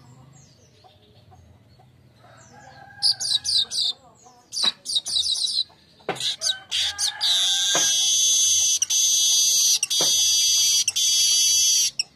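Manyar weaver bird singing: a few series of quick, falling high chattering notes, then a long, loud, high wheezy buzz over the last few seconds, broken by a few brief gaps.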